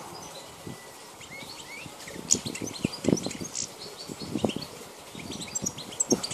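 European goldfinch of the Balkan race (Carduelis carduelis balcanica) twittering in short, rapid high chirps and trills, with a few soft low thumps about three and four and a half seconds in.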